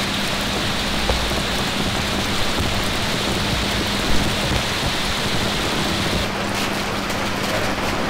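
Heavy rain falling steadily, a dense even hiss. About six seconds in it thins at the top and separate drops can be heard tapping.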